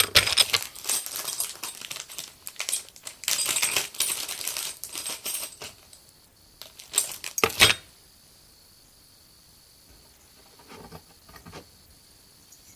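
Small metal parts of a CPU cooler's mounting hardware clinking and clicking as they are handled and hooked into place. A dense run of clinks lasts about six seconds, two sharper clicks follow about a second later, then only a few faint ones.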